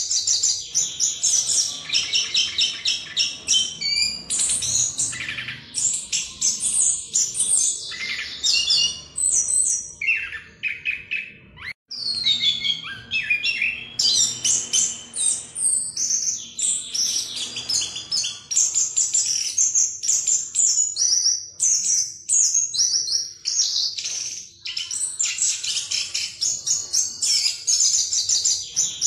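Chestnut-capped thrush (Anis Kembang) singing a long, continuous rolling song of rapid, varied whistled and trilled notes, broken once briefly about twelve seconds in.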